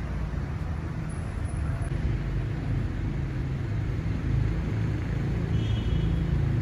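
Steady low outdoor rumble of ambient background noise, with no distinct events.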